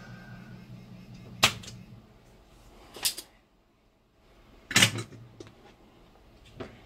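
Spring-loaded desoldering pump (solder sucker) being triggered on solder joints of a circuit board, its plunger snapping back sharply several times, the loudest snaps about a second and a half and nearly five seconds in.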